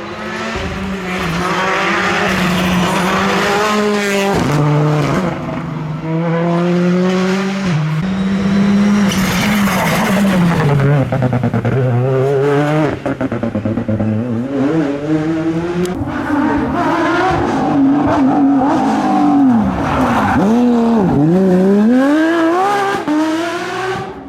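Rally car engines at high revs on a special stage, the pitch repeatedly dropping and climbing again as the cars shift gear, brake and accelerate. Several passes follow one another.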